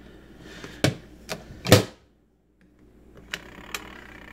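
A few sharp clicks and knocks as the controls of a twin-tub washing machine are handled. After a brief dropout, a faint steady hum sets in with two more clicks.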